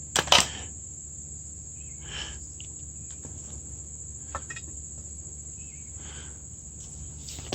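Scattered light clicks and knocks from handling the parts of a steam trap that has just been unbolted, over a steady high-pitched trill like a cricket's.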